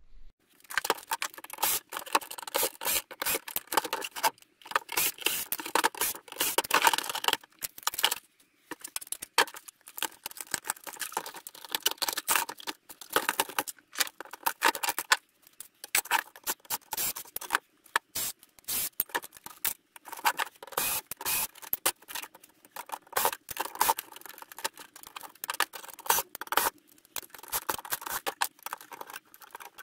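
Metal and plastic parts of a VHS player clicking, scraping and clattering as it is taken apart by hand, in quick irregular clicks with short pauses.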